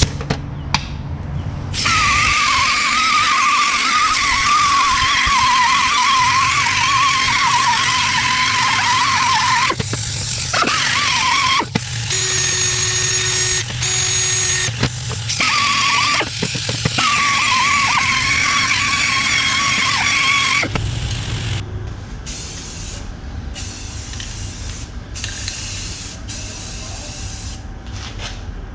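A power tool's motor whining under load, its pitch sagging and wavering as it bites. It runs for about eight seconds, stops, and runs again for about four seconds.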